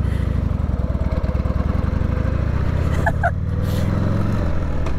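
Harley-Davidson Sportster's air-cooled V-twin engine pulling away from a stop. Its revs climb from about halfway through, then dip briefly near the end at a gear change.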